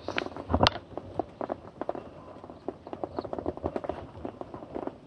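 A landed fish struggling in a wire-mesh landing net on grass while the hook is worked out of its mouth: a quick, irregular run of soft slaps, taps and rustles, with one sharper click a little under a second in.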